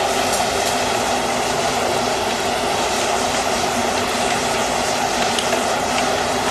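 Forge running steadily: an even, continuous rushing noise with no hammer blows, as the horseshoe and toe bar heat for the next forge weld.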